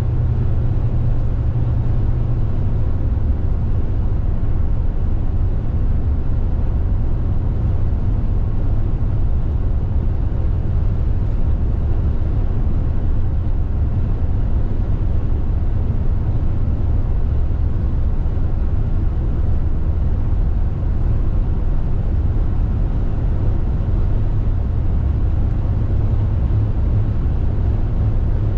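Steady road noise of a moving car heard from inside the cabin: a low, even rumble of tyres and engine with no changes.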